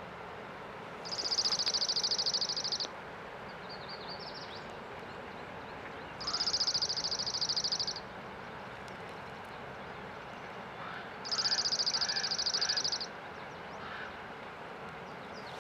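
A songbird singing a rapid, high-pitched trill, three times, each just under two seconds long and about five seconds apart, over the steady rush of river water.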